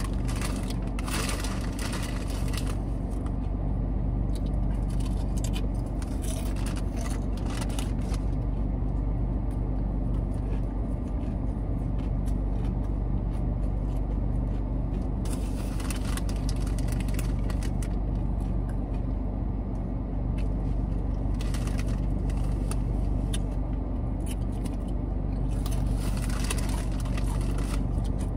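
Steady low hum of a car's engine idling, heard inside the cabin. Now and then there is brief rustling and crinkling as a plastic bottle and a chip bag are handled.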